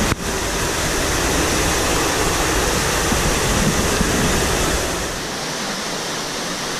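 Steady rushing of a waterfall and fast-flowing stream in a rocky canyon, with a low rumble under it that eases about five seconds in.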